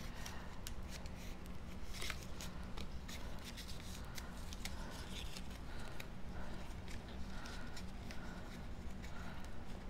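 Cardstock handled and folded by hand: soft paper rustling and rubbing with faint scattered clicks, over a low steady hum.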